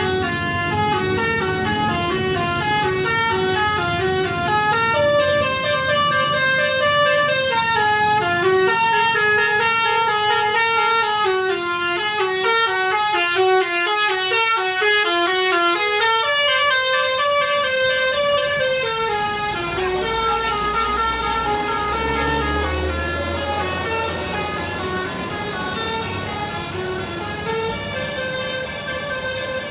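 Basuri v1 telolet bus horn playing its multi-tone melody: a fast run of stepped notes climbing and falling in pitch, sounding without a break. A low rumble joins about two-thirds of the way in.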